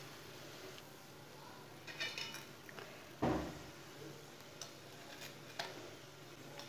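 Metal kitchen tongs clicking and clinking against a glass plate as fried okra fritters are set down on it. There are a few light clicks and one duller, louder thump about halfway through.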